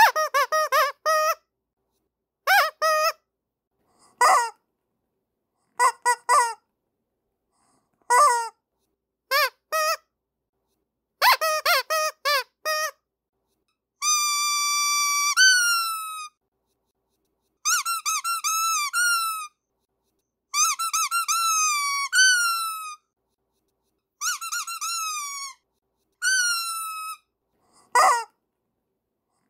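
Squeaky rubber dog toys being squeezed. Short squeaks come in quick groups of two to five for the first half; after that come longer squeaks, each held on one pitch and then dropping at the end, also in groups; a single squeak comes near the end.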